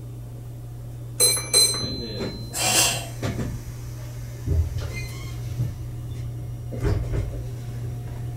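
Interior of a Meitetsu electric train standing at a station: a steady low electrical hum from the car's equipment, two sharp metallic clicks a little over a second in, a short hiss about a second later, and a few dull thumps further on.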